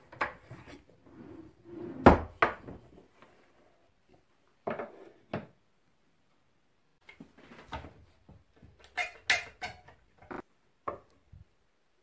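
Wooden mallet knocking on a birch-plywood quick-release vise, with wooden clunks and clicks as the vise jaw and its wooden handle are worked. The knocks come in irregular groups, the loudest a few taps about two seconds in.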